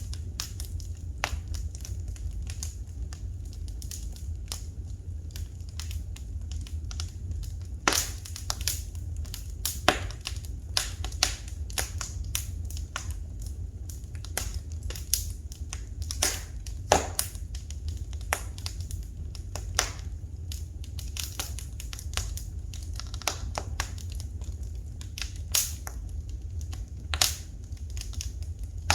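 Wood fire crackling in a fireplace: irregular sharp snaps and pops, a few louder ones about 8, 10 and 17 seconds in, over a steady low rumble.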